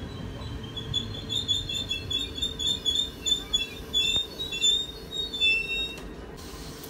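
Czech Railways double-deck passenger train rolling slowly past, its running gear rumbling low. Its wheels give a string of short, high metallic squeals that come and go for several seconds, then die away near the end.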